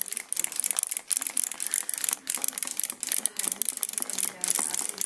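Several wind-up hopping toys running at once: their clockwork springs unwinding and their feet clicking in a fast, continuous rattle.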